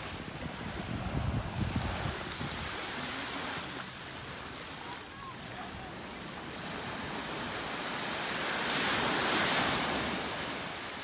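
Surf washing ashore: a steady rush of water, with one wave surging in and peaking about nine seconds in before ebbing. Wind rumbles on the microphone in the first two seconds.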